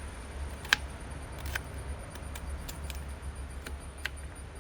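Knife slicing shallots, a string of light, irregular clicks, over a steady low hum.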